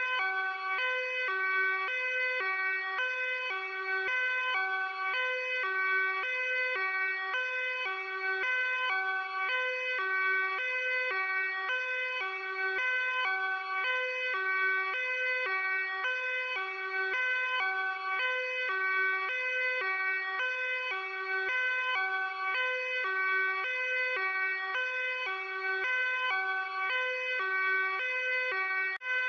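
Luxembourg police car's hi-lo two-tone siren, sounding continuously and alternating quickly and evenly between a low and a high tone.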